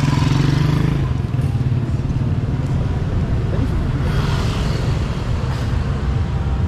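Street traffic: motor vehicle engines running close by, loudest in the first second, with a second surge of passing-vehicle noise about four seconds in.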